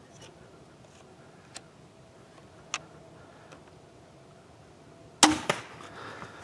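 Barnett crossbow firing: one loud, sharp crack of the release about five seconds in, then a second smack about a quarter second later as the bolt strikes the buck. Rustling in dry leaves follows as the hit deer bolts.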